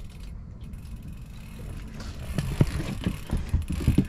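Irregular mechanical clicks and knocks from a sturgeon rod and its conventional reel being handled during a fish fight. They start about two seconds in, over a steady low rumble.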